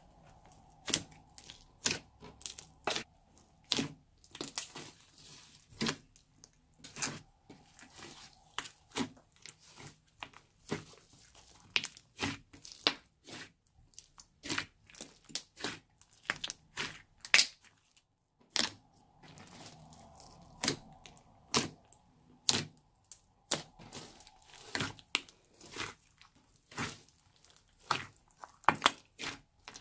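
A large mass of bead-studded slime being kneaded and folded by hand, giving irregular sharp pops and clicks, about one or two a second, with a brief pause about two thirds of the way through.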